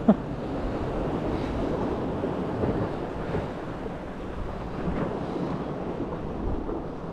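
Steady wind noise on the microphone mixed with the sea washing against the rocks.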